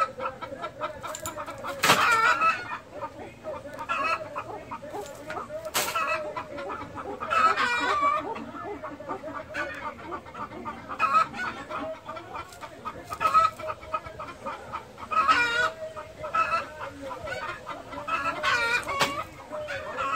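Pheasants clucking and calling, with louder calls about two, eight, fifteen and nineteen seconds in over a steady background of softer calling.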